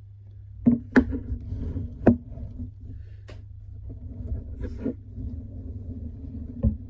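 Plastic handling noise from a Lego Technic motorcycle model being moved about on a desk: a low rubbing rumble with several sharp knocks and clicks, the loudest about one and two seconds in.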